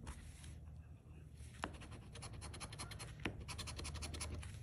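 Metal coin scraping the coating off a scratch-off lottery ticket in quick, rapid strokes. The scraping eases off briefly about a second in, then resumes, with two sharp ticks of the coin edge on the card.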